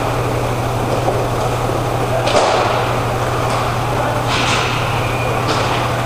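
Roller hockey play in a big hall: a steady wash of rink noise over a low hum, with four sharp clacks of sticks and puck. The loudest clack comes a little over two seconds in, and the others follow about a second apart.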